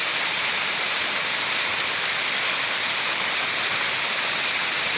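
Waterfall running: a steady, loud rush of falling water, even throughout.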